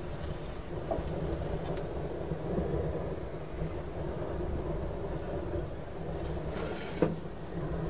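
Gas burner under a smoker's firebox running with a steady low rush, with a single short knock about seven seconds in.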